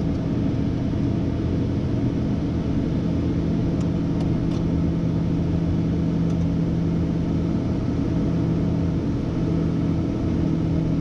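Steady cockpit drone of a Hawker 800XP climbing just after takeoff: its two rear-mounted turbofan engines at climb power and the rush of air past the flight deck, with a low steady hum running under it.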